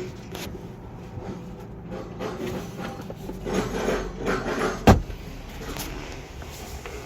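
Scattered rubbing and handling noises on a car, with light knocks and one sharp knock about five seconds in.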